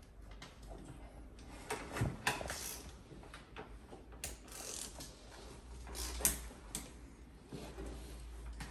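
Scattered metallic clicks, knocks and short rattles of hand tools and parts being worked at a motorcycle's front wheel hub. A dull knock about two seconds in and sharp clicks about six seconds in stand out.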